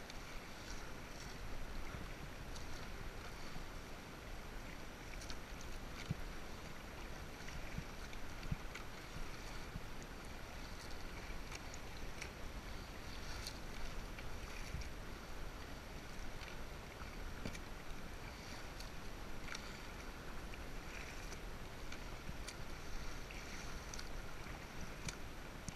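Kayak paddle blades dipping and pulling through choppy seawater, with irregular small splashes and water slapping against the plastic hull of a sit-on-top kayak.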